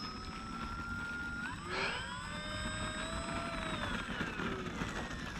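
Electric motor and propeller of an Arrows 1100mm RC Corsair whining in flight. The pitch holds steady, rises sharply about a second and a half in, then slowly falls over the following seconds.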